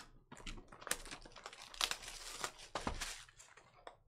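Plastic shrink-wrap being torn and crinkled off a cardboard hobby box: a dense run of sharp crackles and rustles that thins out near the end.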